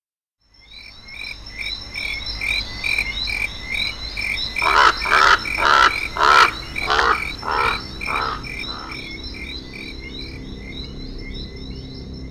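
Repeated animal calls: a steady run of short, high chirps about three a second, joined from about 4.5 to 9 seconds in by a series of eight louder calls about half a second apart.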